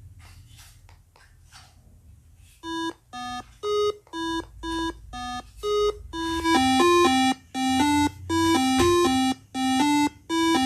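An electronic beeping tune of short, clear notes that starts about two and a half seconds in. It plays about two notes a second at first, then gets louder and faster, with paired notes, after about six seconds. Before the tune there are only a few faint scratchy sounds.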